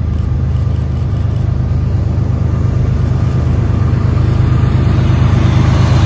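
Diesel freight locomotives running, a steady low engine drone with rail noise above it, growing slowly louder.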